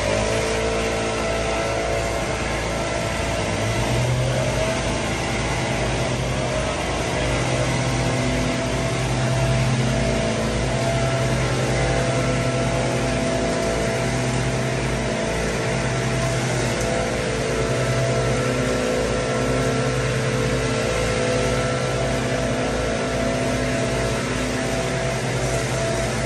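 Small gasoline engines of commercial lawn mowers running steadily while a walk-behind mower cuts grass. The engine pitch wavers a little a few seconds in.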